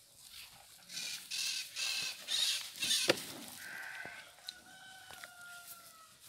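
A rooster crowing, one long call that slides slightly down in pitch through the second half. Before it comes a run of short noisy bursts, with a sharp click about three seconds in.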